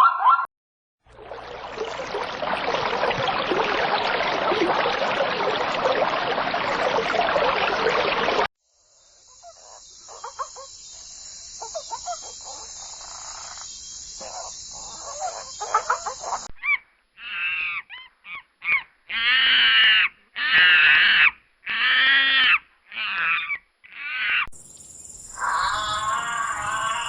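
Farm animals calling in short clips, one after another. A dense, noisy stretch is followed by a quieter stretch with a steady high hiss and faint calls, then by a run of separate pitched calls, each under a second long.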